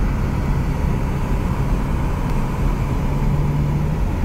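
Steady road and engine noise of a moving car heard from inside its cabin, with a low hum that swells briefly near the end.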